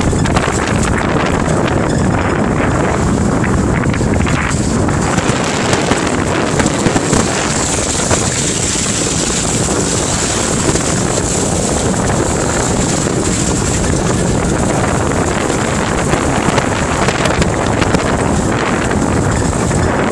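Off-road vehicle driving along a bush track: steady engine and tyre noise, with wind buffeting the microphone.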